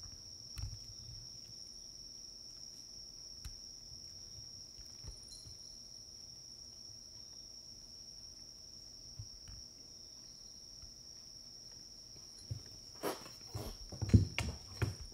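Crickets chirping in a steady, unbroken high-pitched drone. Near the end comes a short cluster of soft knocks and thumps.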